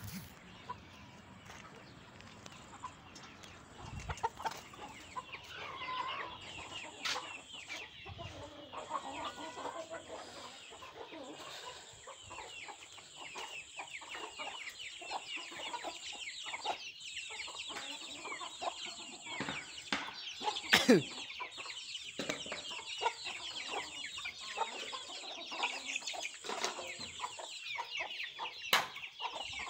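A flock of Aseel and fancy chickens, hens with chicks, clucking and peeping continuously, the calls growing busier from about five seconds in. A couple of sharp knocks stand out, the loudest about two-thirds of the way through and another near the end.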